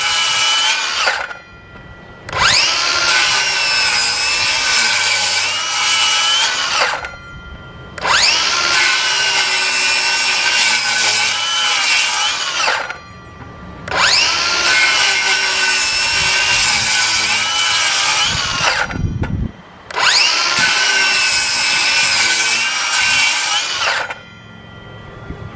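Craftsman V20 brushless 7¼-inch cordless circular saw, fitted with a DeWalt blade, cutting through three stacked 2x4s: the end of one cut, then four more cuts of about four to five seconds each, with a brief pause between them. In each cut the motor's whine dips in pitch as the blade bites into the wood and rises again as it cuts through. The last cut stops near the end.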